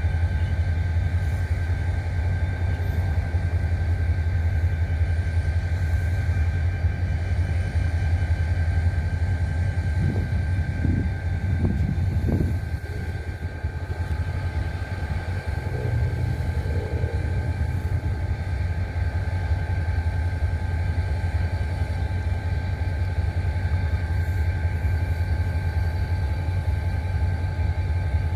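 Diesel freight locomotives, a GE ES44AC and ET44AC, running with a steady low rumble while shoving a string of autorack cars slowly through the yard. A few short surges come in the rumble about ten to twelve seconds in.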